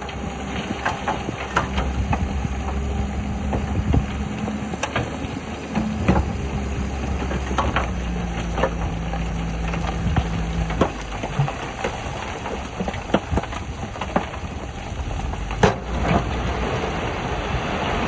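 Diesel engine of heavy earthmoving machinery running steadily, its pitch shifting several times. Scattered clanks and knocks sound over it, with one sharp knock near the end.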